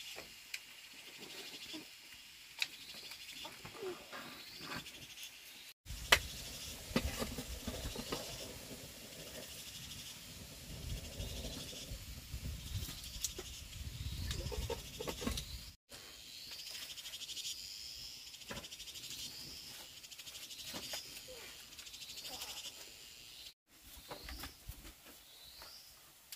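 Birds chirping over and over in short, high, rising calls. A low rumble sits under the middle stretch, and the sound cuts out abruptly three times.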